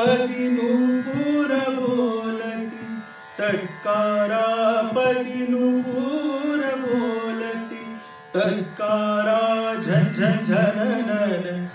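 A man singing a wordless alaap in Indian classical style: long held, wavering notes in three phrases with short breaks for breath, over a steady drone.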